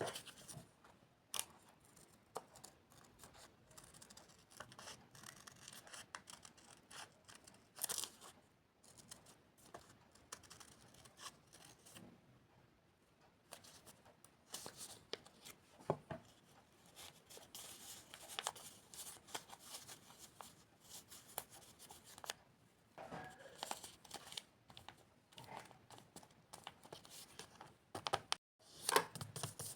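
Paper crafting at close range: paper rustling and being handled, with short snips and scratches in irregular bursts.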